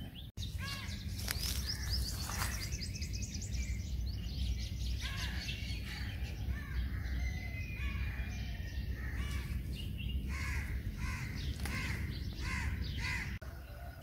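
Birds calling outdoors, among them a crow cawing over and over, with a quick run of caws near the end. A steady low rumble lies underneath.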